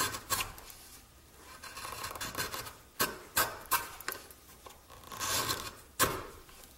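A freshly sharpened wood chisel pushed by hand across the end grain of a wooden block, paring off shavings. It makes slow scraping strokes, with several sharp crisp snaps as the edge cuts through, the loudest about three and six seconds in.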